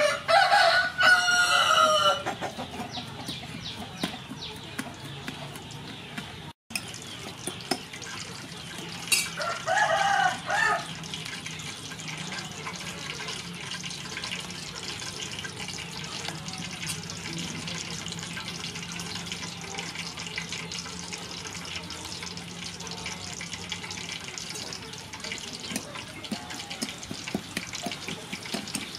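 A rooster crows twice, once at the start and again about nine seconds later. Between and after the crows there are faint clinks and scrapes of a metal spoon stirring salt, pepper and lime juice in a small ceramic bowl.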